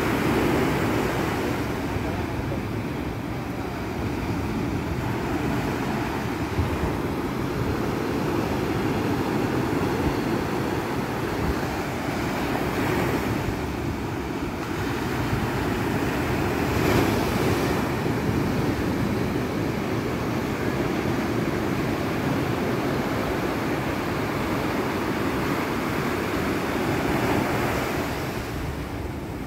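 Sea surf washing in a steady rush, with wind buffeting the microphone; the noise swells a little now and then as waves come through.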